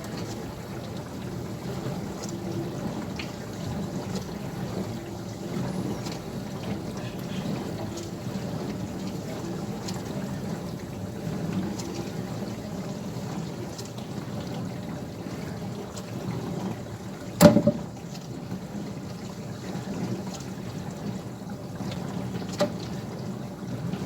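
Dishwasher running a normal wash cycle, with water spraying and sloshing inside it. A single sharp knock comes about two thirds of the way through.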